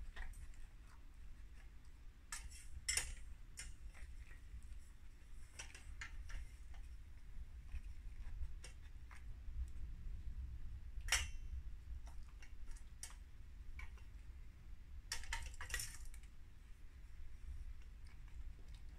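Cat eating dry kibble from a stainless steel bowl on a wire stand: scattered small crunches and metallic clicks of kibble against the bowl. Louder clinking comes about three seconds in, again near the middle, and twice toward the end.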